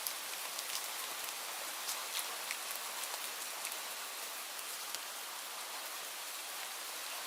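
Light rain falling steadily, a soft even hiss with many small scattered drop ticks.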